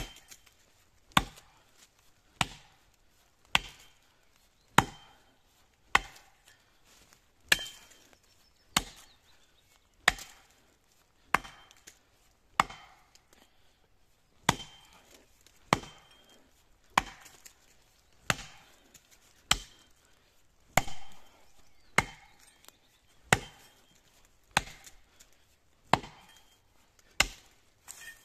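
Axe blade chopping into the trunk of a standing pine tree, cutting the felling notch near its base: a steady run of sharp wooden strikes, about one every second and a quarter.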